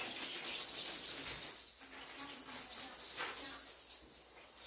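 Water hissing from a garden hose spray nozzle and pattering onto a floor of crushed-stone screenings, wetting the fill before it is tamped. The hiss swells and eases as the spray is swept about.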